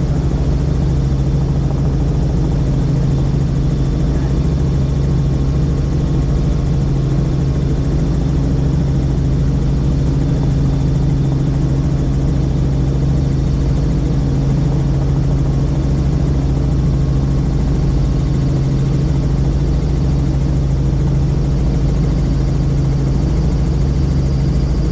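Helicopter engine and rotor noise heard inside the cabin in flight: a loud, steady drone with a constant low hum.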